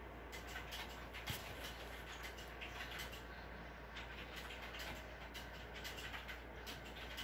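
A kitten playing with a wand cat toy: faint irregular rustling and light ticking from the dangling lure and small paws, with one soft knock about a second in.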